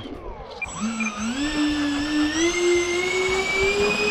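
Four 55 mm electric ducted fans of an RC Airbus A380 model spooling up for takeoff. A whine starts about a second in and climbs steadily in pitch as the plane rolls off down the road.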